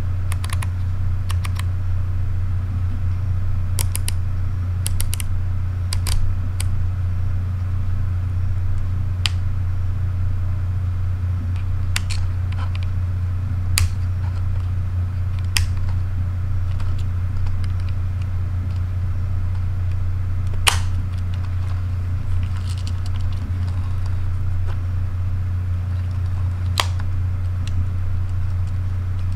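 Fujifilm X-T30's top-plate dials and the 23mm f1.4's aperture ring being turned by hand: scattered sharp detent clicks, some in quick runs of two or three. A steady low hum lies under them throughout.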